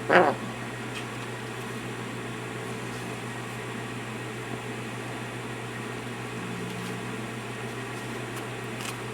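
Steady low hum of a running appliance, with a brief voice-like sound at the very start.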